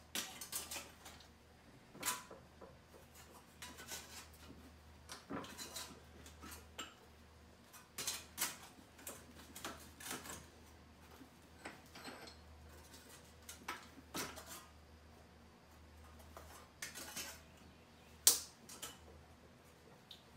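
Steel sunflower petals clinking and scraping against each other and the bench vise as they are bent into shape one by one: irregular metallic clanks and rattles, the loudest one near the end.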